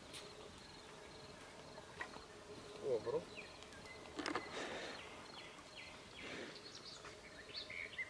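Faint outdoor ambience of small birds chirping in short, high, falling notes, with a brief low gliding sound about three seconds in and a sharp knock about a second later.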